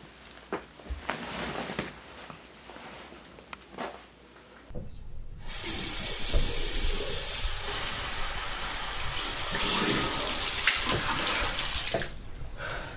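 Bathroom sink faucet running, a steady rush of water into the basin that begins about halfway through and shuts off shortly before the end. Before it come a few faint scattered rustles and clicks.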